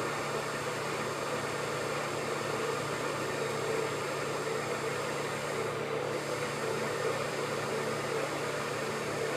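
Şahinler IMAT BC18 vacuum pug mill running while extruding clay: a steady mechanical hum over an even hiss.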